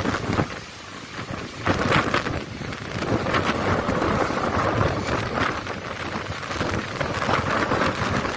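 Gusting cyclone wind buffeting the microphone over heavy rain and the wash of storm waves breaking on the shore, rising and falling in surges every second or so.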